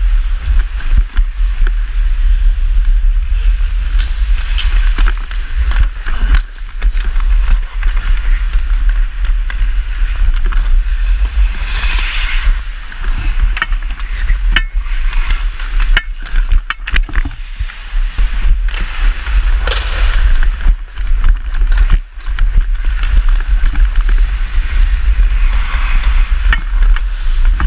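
Ice hockey skates scraping and carving on the ice, with sharp clacks of a stick handling the puck, heard through a helmet-mounted camera over a steady low rumble. The scrape swells several times, loudest a little under halfway through and near the end.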